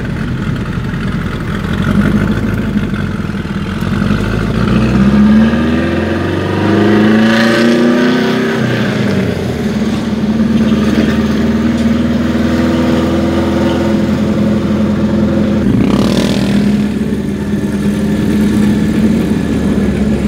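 Toyota Corolla KE35's engine and exhaust, loud, heard from inside the moving car: the revs climb for a few seconds about five seconds in, then settle into a steady drone as it cruises. A brief sharp noise cuts in about sixteen seconds in.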